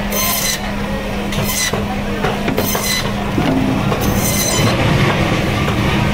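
Band-saw bone saw running with a steady hum, its blade screeching through a rohu's backbone in four short bursts as the fish is fed through and cut into steaks.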